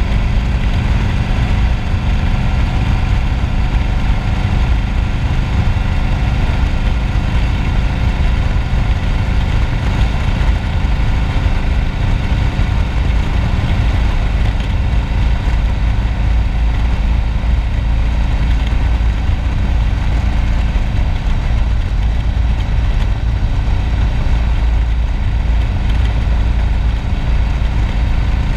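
Yamaha V-Star 1100's air-cooled V-twin engine running steadily at cruising speed, heard from the rider's seat along with wind noise on the microphone.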